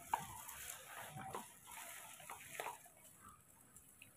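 Faint splashing of water being poured into a plastic cup, with a few light plastic clicks. It stops about three seconds in.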